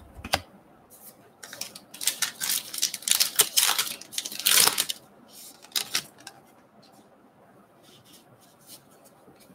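2020 Topps Allen & Ginter X trading-card pack wrapper being torn open, a run of crackling rips lasting about three seconds. A few light clicks and slides of the cards being handled follow.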